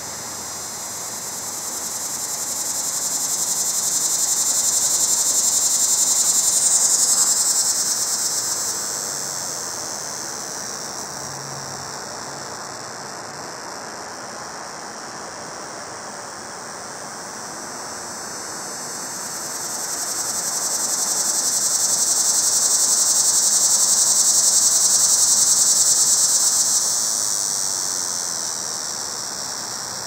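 A cicada calling: a high-pitched buzz that twice swells up and dies away. The second swell breaks off abruptly about three-quarters of the way through, then trails off.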